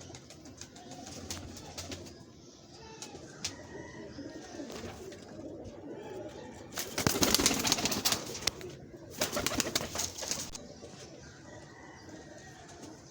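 Pigeons cooing softly, with two loud rustling bursts of about a second each in the middle.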